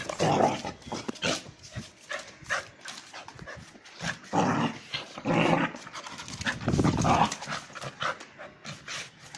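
A dog making low, throaty sounds close to the microphone: a few short grumbles of about half a second each, mostly in the middle, amid scattered light clicks and scuffs.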